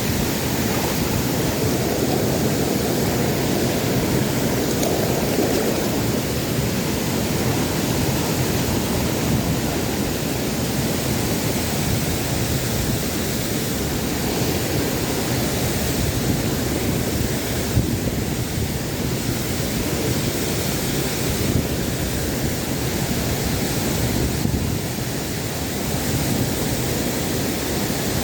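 Steady rush of a waterfall, an even roar of falling and running water.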